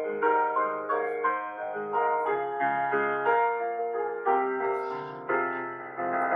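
Background piano music, a slow melody of struck notes, each ringing and fading.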